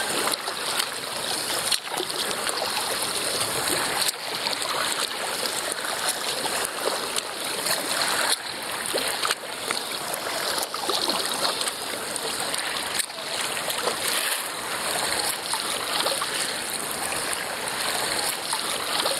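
Water rushing and splashing along the bow of a paddled kayak, with a few sharper splashes or knocks spread through.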